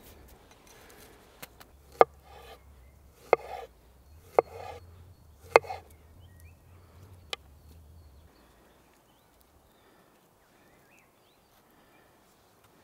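Chef's knife slicing a banana on a wooden cutting board: about six sharp, unevenly spaced knocks of the blade on the board, stopping about three quarters of the way through.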